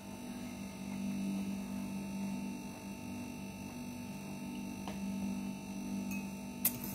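Steady low electrical hum, with a faint tick about five seconds in and one sharp click near the end.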